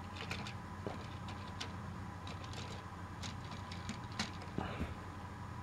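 Light, irregular plastic clicks and taps as Trackmaster toy train trucks are handled and nudged on their plastic track, over a steady low background hum.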